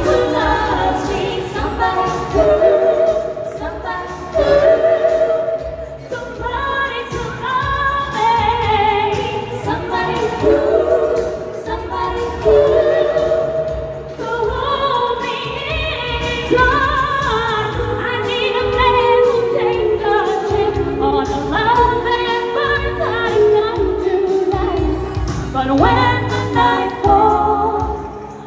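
A woman singing live into a microphone over amplified dance music with a steady beat.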